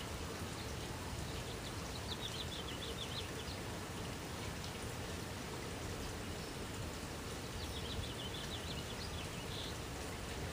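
Steady outdoor background hiss with two brief bouts of rapid, high-pitched chirping, one about two seconds in and another near eight seconds.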